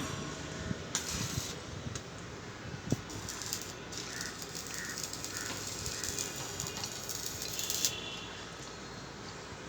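Electric arc welding: a steady crackling hiss from about three seconds in until about eight seconds, preceded by a single sharp click.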